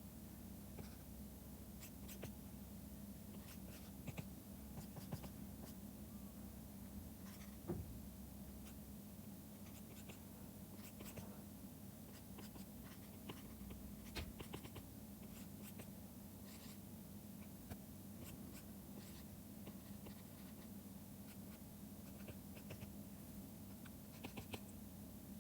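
Faint scratching and light tapping of a stylus pen on a drawing tablet, irregular small strokes over a steady low hum.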